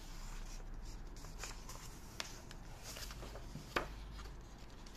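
Pages of a large hardcover illustrated book being turned by hand: soft paper rustling, with two light clicks, about two seconds and nearly four seconds in.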